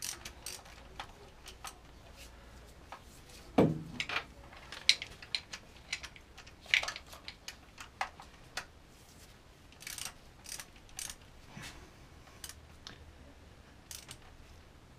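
Hand tools working on a camshaft sprocket bolt, with one spanner holding the camshaft steady while the bolt is tightened: scattered sharp metallic clicks and clinks, the loudest a knock about three and a half seconds in.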